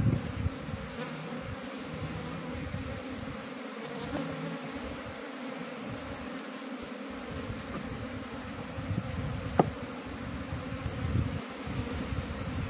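Honeybee colony buzzing steadily in a mass around an opened top-bar hive while a comb is lifted out, with one brief sharp click about ten seconds in.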